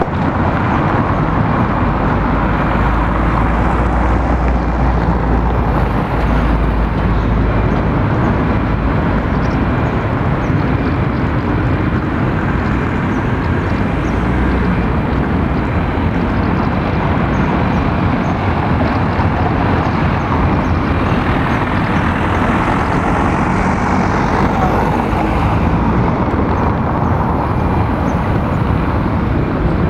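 Steady street traffic noise: a continuous, even hiss and rumble with no single event standing out, the low rumble heavier for the first several seconds.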